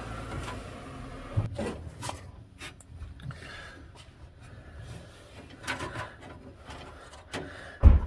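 Hands handling a wire harness and pushing small plastic wire connectors together: light rustling and scattered small clicks and taps, with one louder knock near the end.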